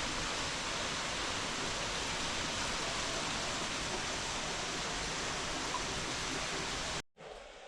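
Steady rush of falling water, even and unbroken, cutting off abruptly near the end.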